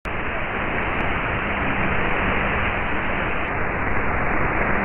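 Shortwave radio static from a software-defined receiver tuned to a weak AM broadcast on 11925 kHz. A steady hiss is cut off sharply above about 4 kHz by the receiver's audio filter, with a faint low hum that comes and goes; no programme is yet audible through the noise.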